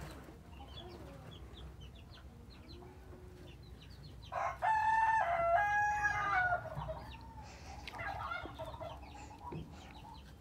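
A rooster crowing once, a stepped call of about two and a half seconds near the middle. Faint small clicks from hands working a raw chicken in a plastic basin.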